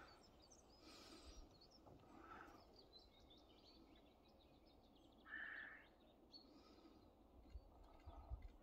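Near silence with faint, scattered bird chirps and one brief louder note about five seconds in.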